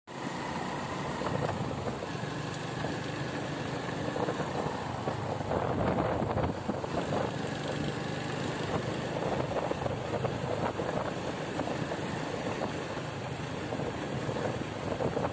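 Motorcycle engine running while riding along at a steady pace, mixed with wind and road noise.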